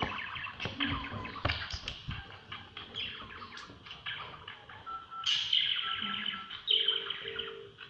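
Budgerigars chattering and warbling: a continuous stream of quick, falling chirps, with a few louder, sharper calls in the second half.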